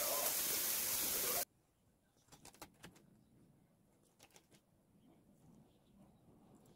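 Food sizzling in a frying pan as a steady hiss that cuts off abruptly about a second and a half in. After that there are faint light clicks and taps.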